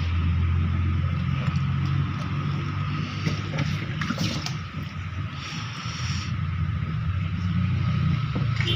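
A motor running steadily: a low rumble with a faint, steady higher whine over it.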